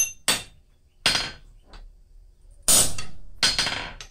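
Hand hammer striking a steel punch held on red-hot steel on an anvil, driving it down to punch a hole through a forged tong half. There are five sharp metallic blows with short ringing, unevenly spaced about a second apart, and two light taps between them.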